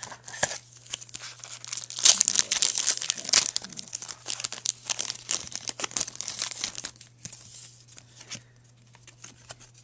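Wrapper of a Digimon Series 2 trading card pack crinkling and tearing as the pack is opened, loudest a couple of seconds in and thinning to light rustling near the end.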